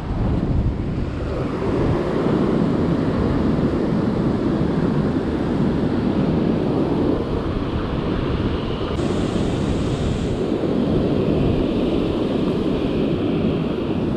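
Ocean surf breaking on a sandy beach, heard as a steady rushing noise with wind buffeting the microphone.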